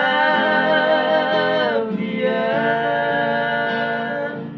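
Several men singing a slow song together, holding long notes, to acoustic guitar accompaniment; the voices die away near the end while the guitar goes on.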